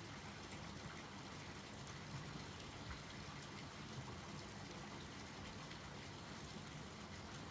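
Small wood fire in a compact wood stove crackling faintly, with scattered light pops over a steady low hiss.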